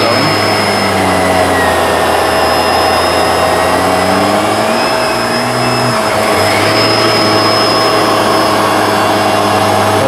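Bissell PowerLifter Swivel Lift-Off Pet upright vacuum cleaner running on a mattress: a steady, loud motor whine and airflow roar with a constant high tone, its lower pitch shifting slightly as the machine is moved.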